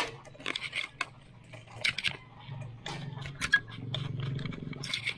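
Bicycle clattering and clicking as it rolls over a rough, rutted dirt track, in irregular metallic rattles. A low steady hum comes in about halfway through.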